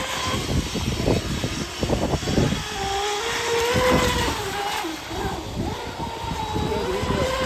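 Electric outboard motor of an RC F1 tunnel-hull racing boat whining as the boat runs at speed across the water, its pitch dipping and rising with throttle and turns. Gusty wind buffets the microphone underneath.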